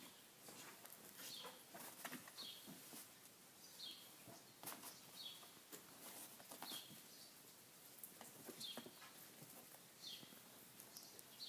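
Near silence: faint scuffles and paw clicks of two Parson Russell terrier puppies playing on a dog bed, with a faint high chirp, falling in pitch, repeating every second or so.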